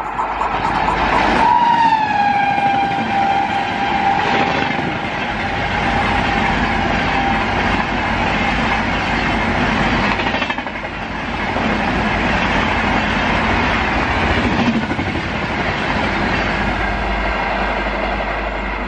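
An electric locomotive's horn sounds as an express train passes at about 130 km/h. Its pitch drops as the locomotive goes by, and the horn holds for a few seconds. After it comes the rush and clatter of the coaches passing at speed.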